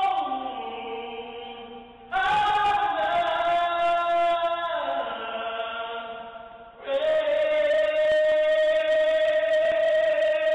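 A man singing unaccompanied in long, drawn-out notes. There are three held phrases: the first two slide down in pitch as they fade, and the last, starting about two-thirds of the way in, is held steadily.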